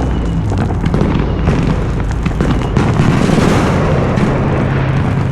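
Fireworks going off without a break: many overlapping quick crackles and pops with booms among them, far away but loud, over a low steady hum.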